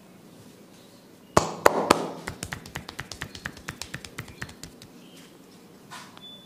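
Massage percussion: a run of sharp hand taps and clicks. Three loud ones come about a second and a half in, then a quicker train of lighter taps, about six a second, fades out.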